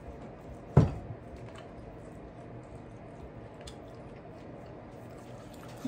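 A person chewing a mouthful of food, with one sharp thump about a second in and a few faint ticks.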